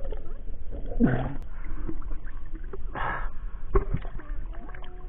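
Muffled water noise from a camera moving underwater and breaking the surface, with three short rushes of sloshing water, the last one near four seconds in.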